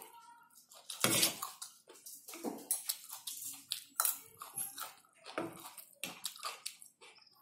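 A person eating fried noodles: chewing and mouth noises, with a spoon and fork knocking and scraping on a plate, in short irregular bursts.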